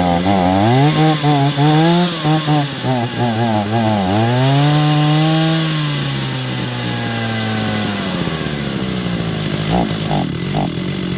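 Small two-stroke chainsaw engine, likely a Stihl, revved up and down several times, then dropping back to a steady idle. The saw is running poorly and is being tuned on its low-speed fuel mixture.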